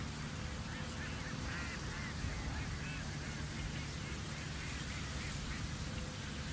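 Young cuckoo in the nest begging for food: a fast run of short, high, squeaky calls, several a second, starting about a second in and stopping near the end, over a steady hiss.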